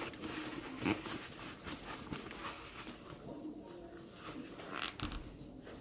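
Paper napkin rustling and crinkling as it is handled and wiped across the mouth, with a sharp crinkle about a second in.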